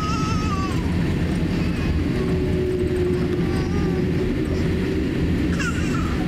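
Boeing 787-8 cabin noise as the airliner slows after touchdown and turns off the runway: a steady low rumble of the engines and wheels. A few short high-pitched wavering sounds break over it, one about a second in and another near the end.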